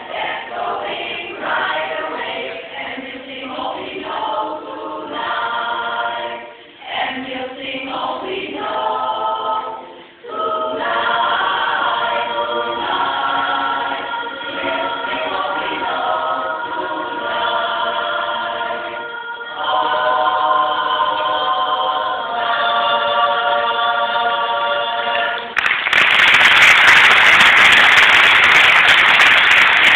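Women's barbershop chorus singing a cappella in close harmony. Near the end the song finishes and audience applause breaks out, louder than the singing.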